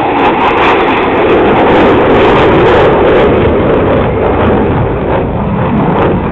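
Twin-engine F/A-18 Hornet fighter jet passing overhead: a loud jet roar that peaks about two seconds in and eases slightly as the jet pulls away.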